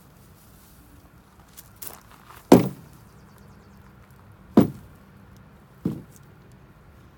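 Three loud thumps, about two seconds and then a second and a half apart, as a lawn mower's grass-catcher bag on its wire frame is bumped on the ground.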